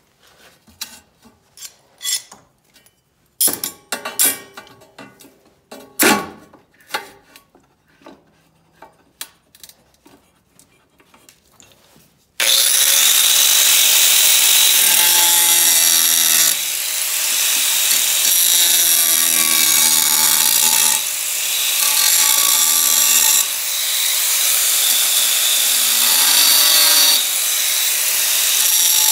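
For about the first twelve seconds, scattered clicks and knocks of tools being handled. Then an angle grinder with a cut-off wheel comes in suddenly and runs loud, cutting into a rusty steel circular saw blade, with a few brief dips in its loudness.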